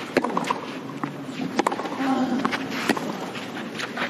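Tennis rally on a clay court: racket strikes on the ball at a steady pace, about one every second and a half, over a steady background of crowd noise.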